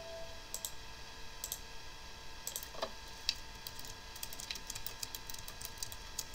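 Mouse clicks, then typing on a computer keyboard in quick keystrokes through the second half. A faint steady whine from the computer runs underneath.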